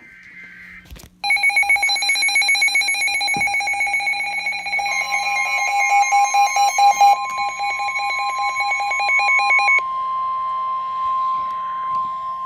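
Emergency Alert System warning: an alert receiver's rapidly pulsing, shrill alarm beep, joined about five seconds in by a steady single-pitched attention tone. The beeping stops about ten seconds in, while the steady tone holds on.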